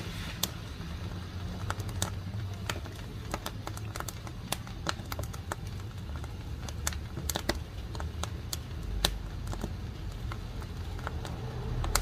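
Wood fire crackling in the firebox of a wood-burning cookstove, sawn planks burning over embers: irregular sharp pops and snaps, several a second, over a low steady rumble.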